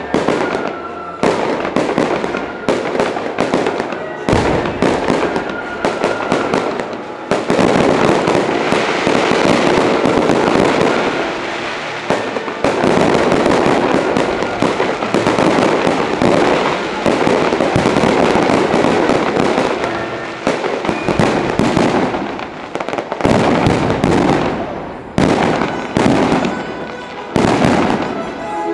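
Fireworks display: aerial shells bursting one after another in rapid bangs, building into dense barrages where the bursts run together almost without a break through much of the middle.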